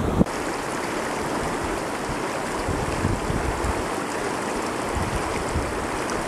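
Shallow, fast mountain river rushing over stones: a steady rush of water.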